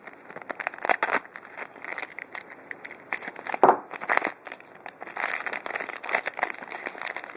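Small packaging around a new airsoft feed ramp being opened by hand: a run of short crinkling rustles, loudest a little past halfway.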